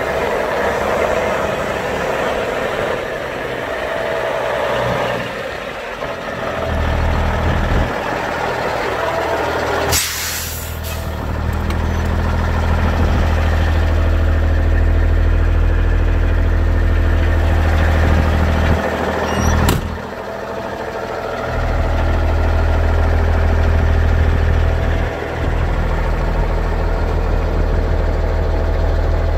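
The Cummins N14 Plus inline-six diesel of a 1999 Peterbilt 378 idling steadily. Two short sharp noises cut in, one about ten seconds in and another near twenty seconds.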